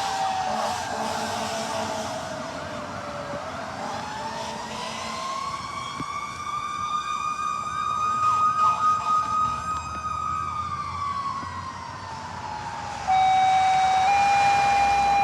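Fire engine siren wailing: its pitch falls, rises and holds high for a few seconds, then falls again. Near the end a loud two-tone dispatch page cuts in over the radio: a short steady tone, then a slightly higher tone held on. This is the tone-out that alerts a station to a call.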